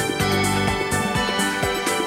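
Background music with a steady beat and sustained keyboard-like notes.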